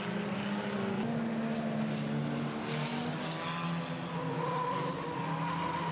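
Several banger-racing saloon cars' engines running on the track at once, with tyres skidding about two to three seconds in.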